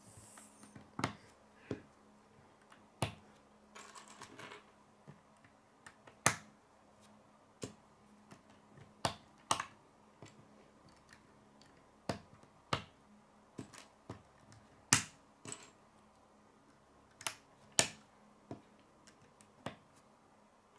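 K'nex plastic rods and connectors clicking as they are snapped together and handled on a wooden table: about twenty sharp, separate clicks at uneven spacing, with a brief rustle of pieces about four seconds in.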